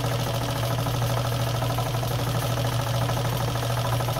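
Vintage Nelco sewing machine running steadily as it stitches through denim. Its motor gives a constant hum, with a fast, even ticking from the needle mechanism.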